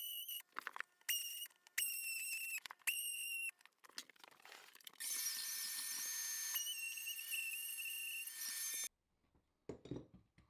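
A small high-pitched power tool is triggered in several short bursts, then runs for about four seconds as it cuts the baseboard, with a noisier rasp under the whine. It stops suddenly, followed by a couple of low knocks.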